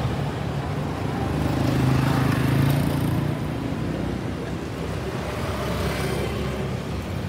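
Steady engine and traffic noise, with a low engine hum that swells about two seconds in and then eases.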